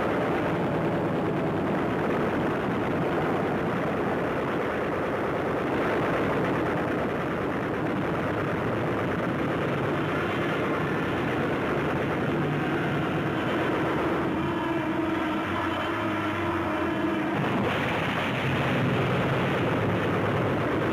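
Steady, dense din of aircraft engines on an old wartime film soundtrack, dull-sounding with no high end. A steadier engine drone stands out for a few seconds about two-thirds of the way through.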